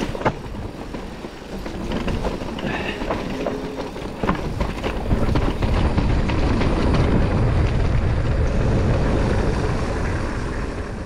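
Mountain bike riding over rough ground: knocks and rattles from the bike, then a steady rushing of tyres and wind on the microphone that grows louder about halfway through.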